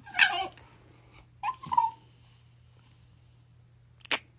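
A Shiba Inu dog making short whining sounds: one right at the start, then a higher, sliding whine about a second and a half in. A single sharp click comes near the end.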